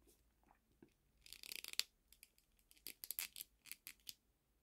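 Small plastic clicks and scrapes as a Figma action figure's head is worked back onto its neck joint peg: a short cluster about a second in, then a second run of clicks from about three seconds in.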